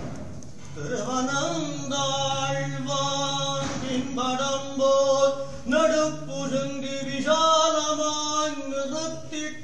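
Male voice chanting a devotional hymn in long, held sung notes, broken every second or so.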